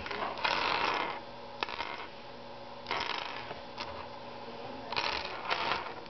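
Plastic pieces of a disassembled 5x5 Rubik's cube clicking and scraping in a few short bursts as an edge piece is handled and fitted into place.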